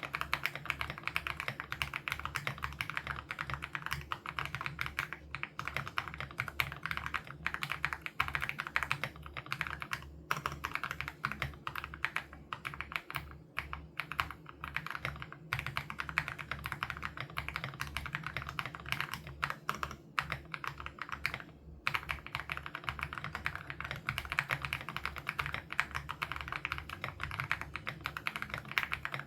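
Steady, fast typing on an Aula F87 Pro mechanical keyboard with HMX Sarcophagus switches: dense runs of keystrokes, broken by short pauses about ten seconds in and again about twenty-two seconds in.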